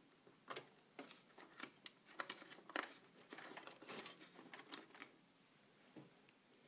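Faint, irregular clicks, rustles and scrapes of hands working plastic packing tabs and tape inside a new laser printer's toner bay, thinning out about five seconds in.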